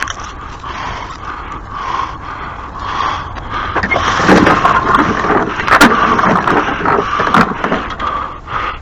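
Scraping and knocking as hard objects are shifted and handled, the knocks coming thickest in the second half, over a steady whine underneath.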